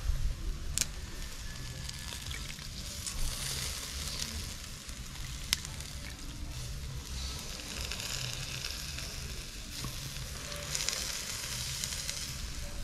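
Chicken drumsticks sizzling on a wire grill over a charcoal coal pot, the hiss swelling three times as basting sauce drips onto the hot coals. There is one sharp click about halfway.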